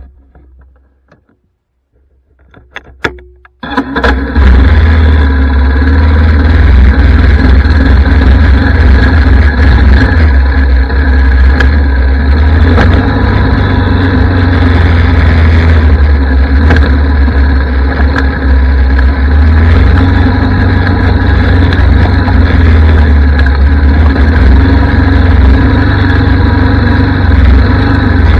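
Single-cylinder four-stroke Yamaha ATV engine running loudly as the quad rides along, coming in suddenly a few seconds in after a few faint clicks, with a heavy steady rumble.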